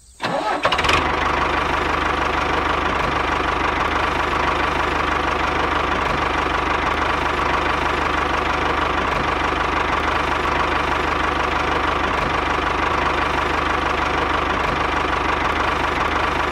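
Tractor engine running steadily, with a fine rapid knock in its low end. It comes in just after the start and cuts off abruptly near the end.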